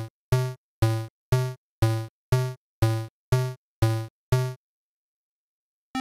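Chiptune-style 8-bit synthesized sound effect: a low, buzzy note repeated about twice a second, around ten times, each note dying away quickly. It stops about four and a half seconds in.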